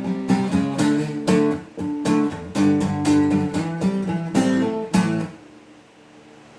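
Tribo TR-05 Nelson acoustic guitar strummed in a run of chords, with the last stroke about five seconds in; the sound then dies away to a faint ring.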